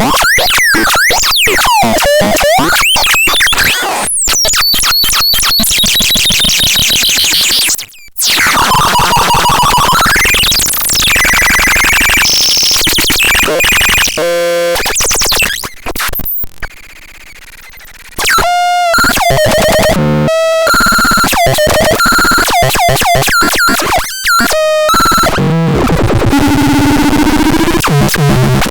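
Electronic synthesizer making harsh, noisy tones: buzzy notes whose pitch sweeps up and down, stretches of noise, and rapid chopped pulses. There is a quieter hiss a little past halfway.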